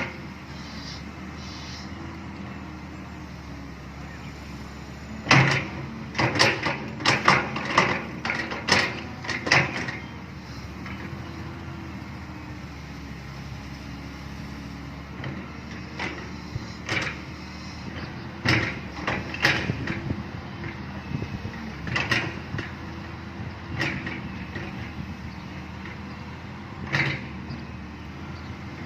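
Excavator's diesel engine running steadily, with sharp metallic knocks and clanks from the working machine: a quick run of them about five seconds in, then single knocks every second or two.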